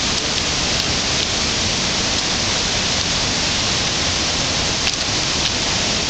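Steady, dense rush of water noise, unbroken, with a few faint clicks on top.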